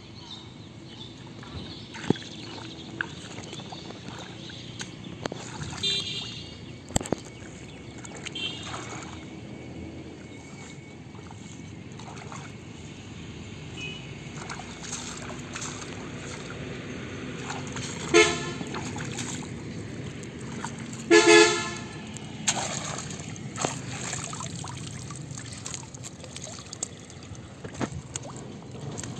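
Vehicle horns honking several times, short blasts with the loudest two in the second half, over a steady low outdoor background with a few small clicks and knocks.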